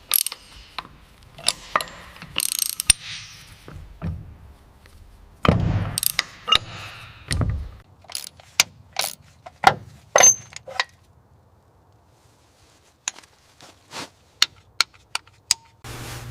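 Metal hand tools and parts at work: a string of sharp metallic clicks and clanks with a few heavier knocks in the first half. A quick run of light clicks follows a short lull near the end.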